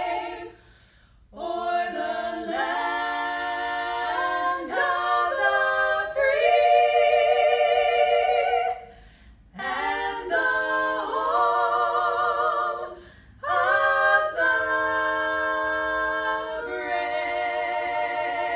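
Three women's voices singing a national anthem a cappella in close harmony, phrase by phrase with short breaths between. The last few seconds are one long held chord with vibrato.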